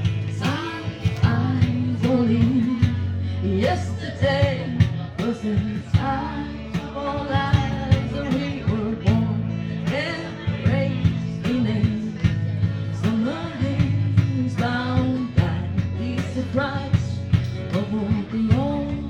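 Live unplugged pop ballad: a singer's voice over strummed acoustic guitar accompaniment, with regular strumming strokes under the sung line.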